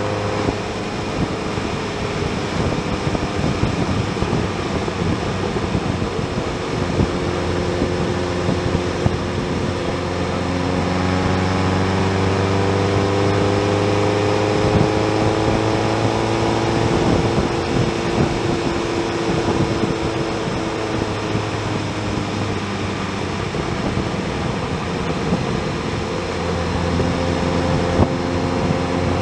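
Motorcycle engine running at cruising speed, with steady wind and road noise over it. The engine note climbs slowly through the middle and eases back down toward the end.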